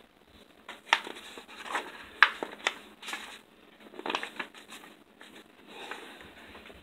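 Pages of a large picture book being turned by hand: a series of crisp paper rustles and flaps, the sharpest about two seconds in.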